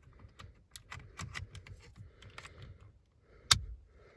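Plastic wiring connectors being handled and pushed onto a steering column clock spring unit: a run of light plastic clicks and rattles, with one loud snap about three and a half seconds in as a connector latches home.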